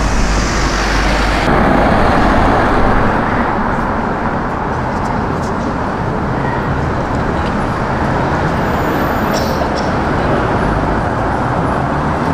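Steady city street traffic noise of cars and buses passing, swelling a little about two seconds in as a vehicle goes by.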